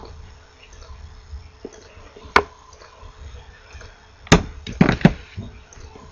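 A few sharp knocks and clicks of a small printed circuit board being handled and set down on a desk: one about two seconds in, a louder one a little past four seconds, then a quick cluster of taps just after.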